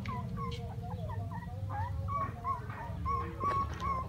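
Puppy whimpering: a quick string of short, high-pitched cries, about three a second, over a steady low rumble.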